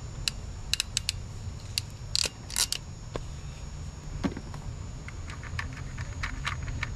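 Hand wire cutters clicking and snipping on thin electrical wires, loudest in two sharp snaps a little past two seconds. Near the end comes a run of light clicks, small crimp connectors being rummaged in a plastic organizer box, over a steady low rumble.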